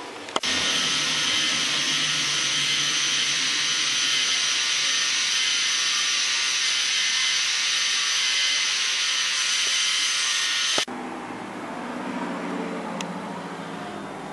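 K'nex model miter saw's small electric motor and plastic gear train running, a steady high whir that starts suddenly about half a second in and cuts off abruptly about ten seconds later.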